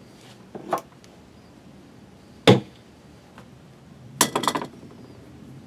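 Small hand tools being handled during wiring work: a short clatter under a second in, one sharp knock about two and a half seconds in, and a quick run of clicks and clinks around four seconds in.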